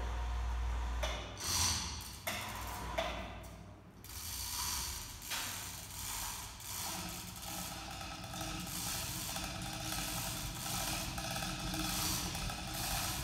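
Hand-pulled overhead chain hoist being worked, its load chain rattling through the block with a steady fast clicking of the ratchet as it takes the weight of an aluminum boat hull. A brief low hum and a few knocks come at the start.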